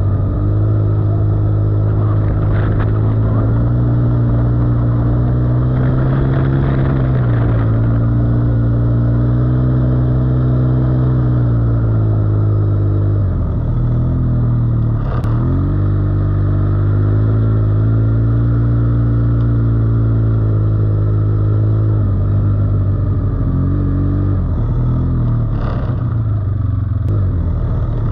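ATV (quad bike) engine running under way, its pitch rising and falling with the throttle and dropping briefly about halfway through before picking up again. A couple of short knocks come through, one mid-way and one near the end.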